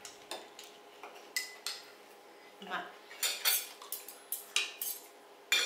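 Forks and spoons clinking and scraping against ceramic plates and soup cups during a meal. The clinks are short and irregular, come more often in the second half, and the loudest falls just before the end.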